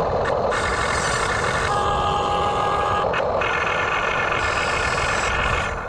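RC backhoe excavator running with a steady engine-like drone. A high whine is held for about a second, starting about two seconds in.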